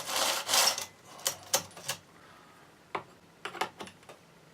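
Chain and 24-inch bar on a Husqvarna 562 XP chainsaw being tensioned by hand. A burst of metal scraping is followed by a run of sharp metallic clicks.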